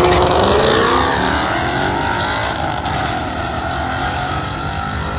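Drag-racing car engines running hard on the strip, their note falling in pitch and slowly fading.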